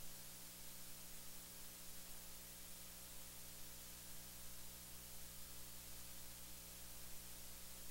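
Faint steady hiss with a low electrical hum and its overtones: a recording's noise floor.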